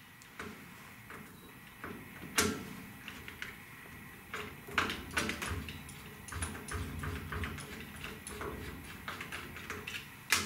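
Hand screwdriver driving a mounting screw through a plastic keypad base into a metal door, with scattered clicks and light knocks of the tool and screw, the sharpest about two and a half seconds in, and a low scraping grind in the middle.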